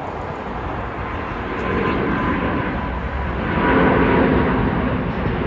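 Airbus A350-900's Rolls-Royce Trent XWB turbofan engines at takeoff power as the jet lifts off and climbs out. It is a dense rumble with a faint steady whine, and it grows louder about three and a half seconds in.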